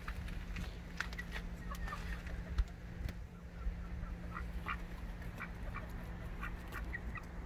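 Domestic ducks quacking and chattering in short calls, scattered throughout and coming more thickly in the second half. There is a brief low thump about a third of the way in.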